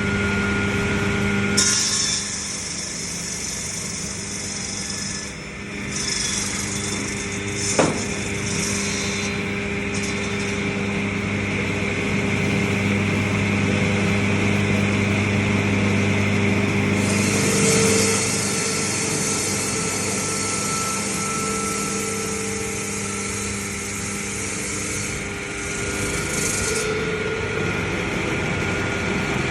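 Electric ice-cutting machine with a gang of 12 saw blades running with a steady hum while a block of ice is pushed through by hand, giving several long stretches of high, gritty sawing hiss as the blades cut. A sharp knock about eight seconds in.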